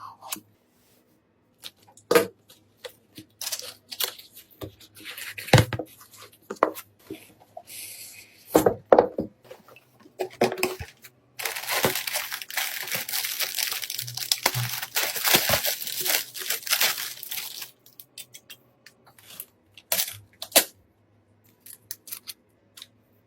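Hands handling PC parts and packaging, with scattered sharp clicks and knocks. In the middle comes a continuous tearing, crinkling rustle lasting about six seconds.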